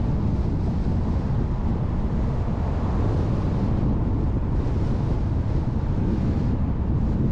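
Car on the move, recorded by an onboard action camera: a steady low rumble of road and wind noise, with wind buffeting the microphone.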